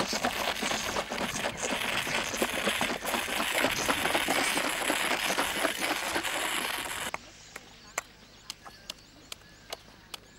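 Rhino calf sucking hard on a milk bottle's teat: a dense, fairly loud run of slurping and gulping with rapid ticking. It cuts off about seven seconds in, leaving quiet with faint sharp clicks about twice a second.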